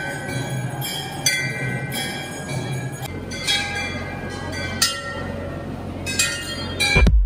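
Large hanging brass temple bells struck by hand again and again at uneven intervals, each clang leaving a long ringing tone that overlaps the next.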